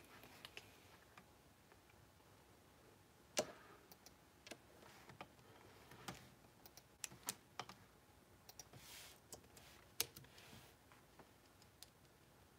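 Sparse, irregular clicks of a computer keyboard over near-silent room tone, a dozen or so scattered taps with gaps between them.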